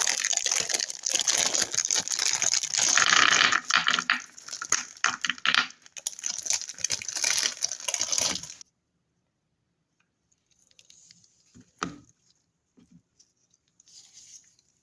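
A dark chocolate bar being opened close up: dense crinkling and tearing of its wrapper that stops abruptly about eight and a half seconds in. A few faint rustles and one soft knock follow.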